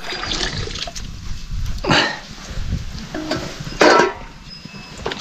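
Cooking liquid poured and sloshing into a metal pot, with a metal ladle scraping and clattering in it, loudest twice, about two and four seconds in.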